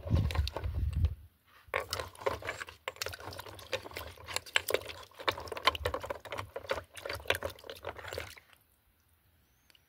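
A hand swishing a cut rock slab around in a bucket of water, with quick splashing and sloshing. It opens with a heavy low thump in the first second and stops suddenly about a second and a half before the end.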